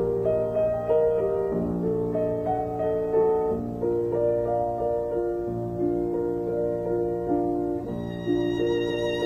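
Instrumental music: a slow violin melody over piano, with higher notes joining near the end.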